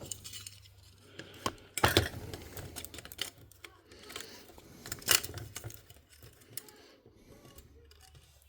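Light clicks and clatter of small parts and tools handled while working on a Sony MZ-R3 MiniDisc recorder, with two louder knocks about two seconds and five seconds in.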